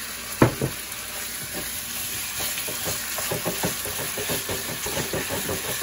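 Marinated sliced beef sizzling in hot oil in a frying pan, stir-fried with a wooden spatula. A sharp knock comes about half a second in, and quick scraping strokes of the spatula run through the second half.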